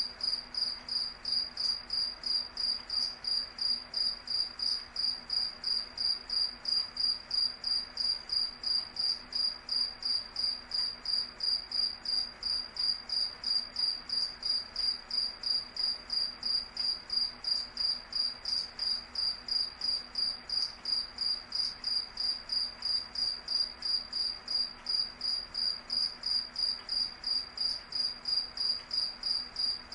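Cricket chirping in an even, unbroken rhythm of about two to three high-pitched chirps a second.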